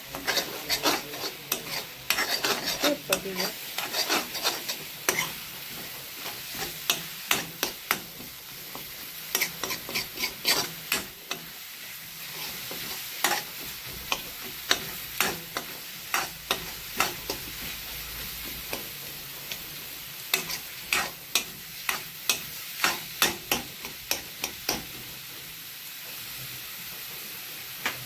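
Metal spatula scraping and tapping against a metal kadai as egg bhurji is stirred, over a steady sizzle of the eggs frying; the eggs are being cooked down until dry. The scraping stops near the end, leaving only the sizzle.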